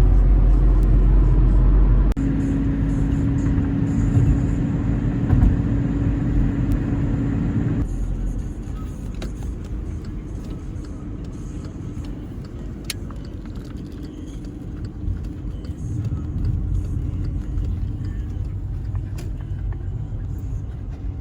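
Car driving, a steady low engine and road rumble. It changes about two seconds in, takes on a steady hum, and falls quieter about eight seconds in.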